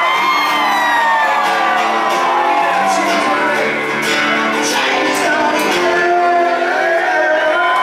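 Two acoustic guitars play a song's closing chords while the crowd shouts, whoops and claps. The guitars fade near the end, leaving the crowd cheering.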